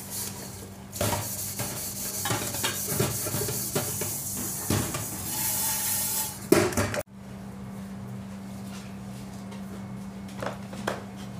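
Eggs boiling hard in an aluminium pot on a gas stove, bubbling and hissing, with clinks and knocks of the pot as it is handled and lifted off the burner, and a loud knock about six and a half seconds in. After a sudden cut there is a quieter steady low hum, and near the end a knife makes two cuts through an eggplant on a cutting board.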